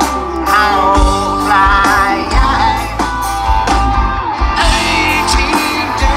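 A rock band playing live through a PA: a singer over electric guitars, bass and a steady kick drum.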